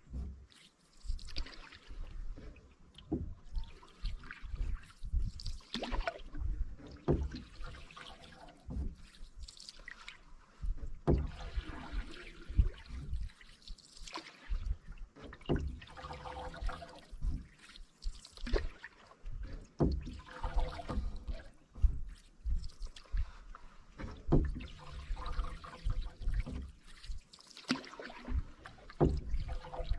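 Canoe paddle strokes in calm water, about one every two seconds: the blade dips and pulls, and water trickles and drips off it between strokes, with dull low knocks among them.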